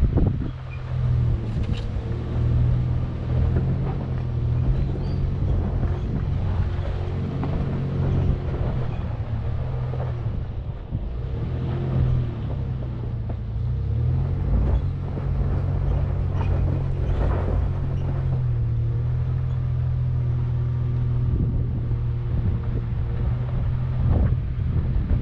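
2019 Chevrolet Colorado ZR2 pickup's engine pulling at low speed up a steep dirt trail, its hum rising and falling slightly in pitch, over tyre noise on gravel and a few short knocks.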